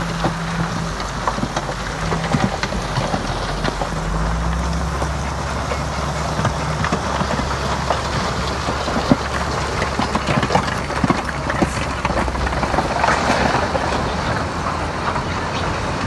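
Heavy diesel earthmoving machinery working over rock: a low engine drone that grows stronger about four seconds in, under a dense, irregular clatter of knocks and rattles.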